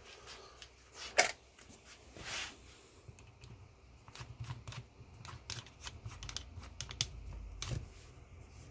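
Small clicks and knocks of hand tools and metal parts being handled on a workbench, with one sharper click about a second in and a brief scrape a little later.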